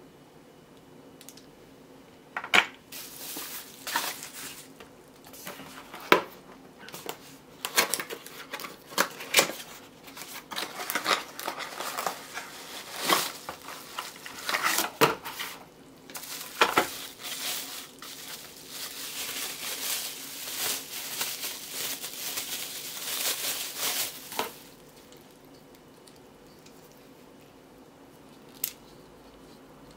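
Sharp clicks and knocks of a small metal camera clamp being handled, then a long stretch of bubble-wrap packaging crinkling and rustling as an articulating arm is unwrapped, with more knocks mixed in; it stops about 24 seconds in.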